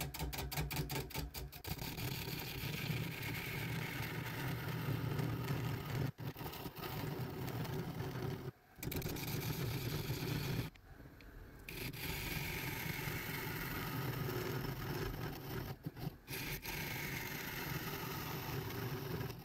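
Wood lathe running while a turning tool scrapes and cuts across the end face of a spinning oak log filled with epoxy resin, truing it flat. A steady motor hum sits under the cutting noise, a high tone slides down twice in the second half, and the sound breaks off briefly twice near the middle.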